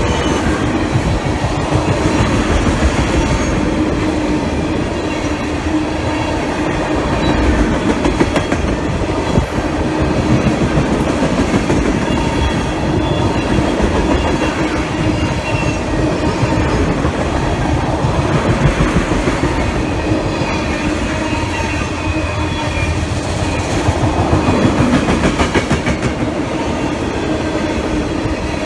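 Freight train cars rolling past at close range: steel wheels rumbling and clicking over the rail joints, with thin wheel squeal at times.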